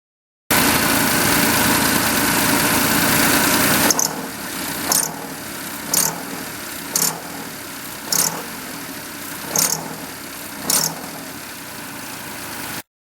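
Mitsubishi 3G83 three-cylinder kei-car engine running, louder for the first three seconds or so, then settling lower with six short bursts of a sharp 'piri-piri' chirping noise about once a second, as the accelerator is lightly pressed. The noise comes from a failing auto tensioner on the engine's accessory belt.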